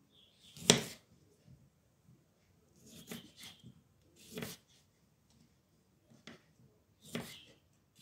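Kitchen knife cutting tomatoes into wedges on a wooden cutting board: about six separate cuts at uneven intervals, the loudest about a second in.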